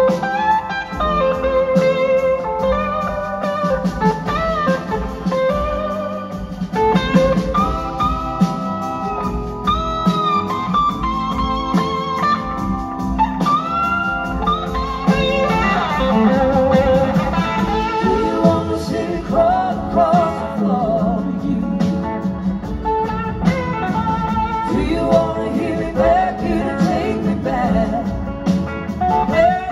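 Live band playing a slow blues-rock song, with a slide guitar leading in gliding, wavering notes over drums, bass and keyboards.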